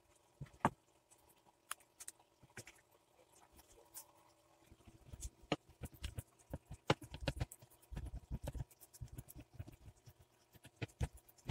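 Spatula scraping thick, sticky ube rice dough out of a non-stick pan and pressing it flat in a glass dish: faint, irregular taps and clicks, with a few dull thumps about eight seconds in.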